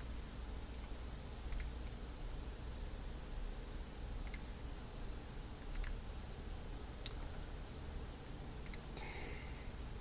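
Computer mouse clicks: about five short, separate clicks a second or two apart, over a low steady hum.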